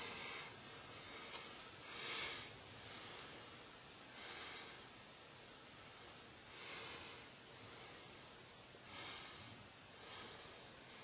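A person breathing slowly and softly, with a hissy breath every one to two seconds.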